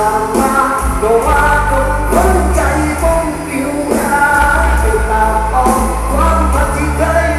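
A song with a singer and a strong bass line, played loud through a car's custom-installed sound system.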